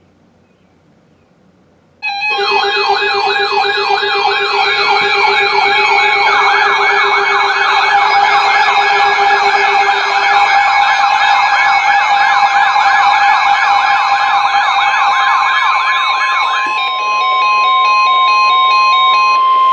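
Weather alert radios sounding their alarms for a severe thunderstorm warning. About two seconds in, several warbling siren tones start together over steady and beeping tones. Near the end the warbling stops and a steady 1050 Hz NOAA Weather Radio warning tone holds alone for a few seconds.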